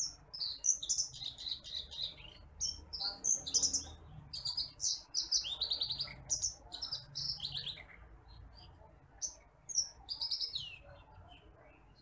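A caged branjangan apung (titimplik), a small rice-field songbird, singing rapid runs of short, high chirps and trills, with brief pauses near the middle and near the end.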